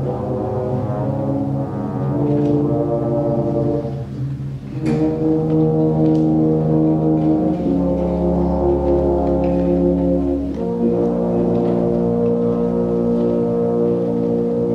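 Concert band of woodwinds and brass playing slow, held chords, with the low brass strong. The chords change every few seconds, with a brief lull about four and a half seconds in before a fuller chord enters.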